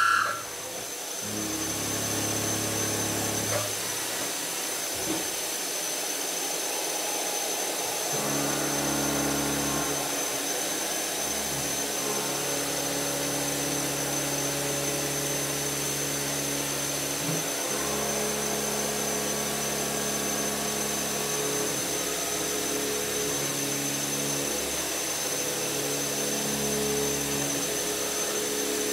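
Kennametal GOmill 12 mm end mill milling 42CrMo4 alloy steel on a CNC machine: steady spindle whine and cutting noise. Its low tone changes several times as the cutting passes change.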